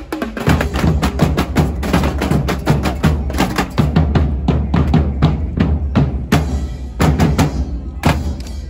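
Carnival percussion music: drums playing a fast, steady beat over a deep steady bass.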